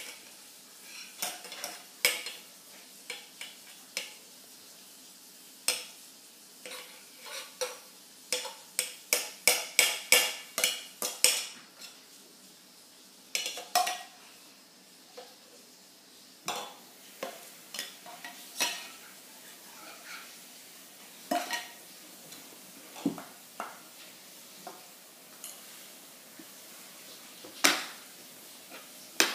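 A baby tapping a metal spoon on the lids of infant formula cans: irregular sharp clinks, with a quick run of strikes around ten seconds in. Later, scattered knocks and clinks as a can is knocked over and the spoon hits the wooden floor.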